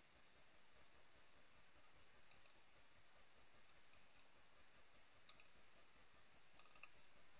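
Faint, sharp clicks and crunches of a hedgehog chewing food from a bowl. They come in small clusters every second or two over a steady faint hiss.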